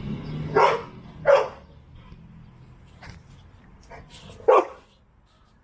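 A dog barking three times: two quick barks about a second in, then a single bark a few seconds later.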